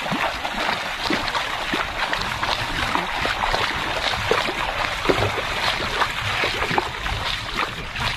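Several people wading through ankle-deep seawater, their feet splashing and sloshing with every step in a continuous run of short splashes.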